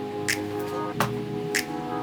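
Music: sustained chords with a percussion hit about every two-thirds of a second.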